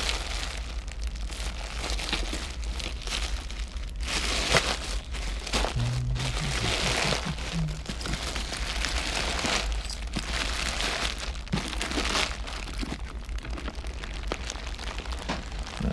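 Plastic bag crinkling and rustling, with many small clicks of jewelry and beads being picked through by hand.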